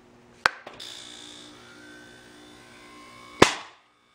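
Homemade pneumatic Nerf Rival launcher charged to 140 psi: a sharp click about half a second in, then a loud pop as it fires about three and a half seconds in, trailing off in a short rush of air.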